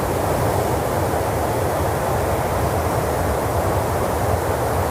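A steady rushing noise with a low rumble underneath.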